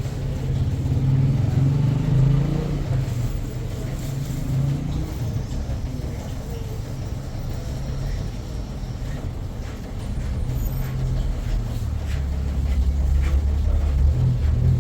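A motor vehicle's engine running steadily, its low hum dropping to a deeper note about twelve seconds in.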